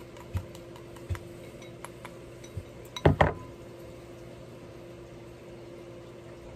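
Wooden chopsticks knocking against a ceramic rice bowl a few times, then a louder double clatter about three seconds in as the bowl is set down on the table.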